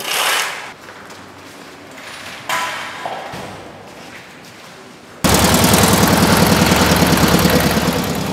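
A few sharp knocks echo in a large empty hall. About five seconds in, a loud machine noise with a fast, rattling pulse cuts in suddenly and keeps going.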